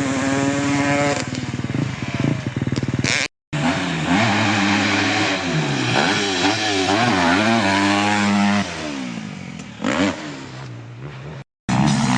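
Motorcycle engine running hard, its pitch climbing and dropping again and again as it accelerates, shifts gears and backs off. Two abrupt cuts to silence break it, about a third of the way in and near the end.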